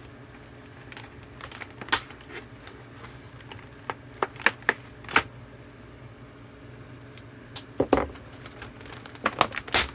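A knife cutting open product packaging: irregular sharp clicks, snaps and crackles as the blade works through it, with a few louder snaps spread through.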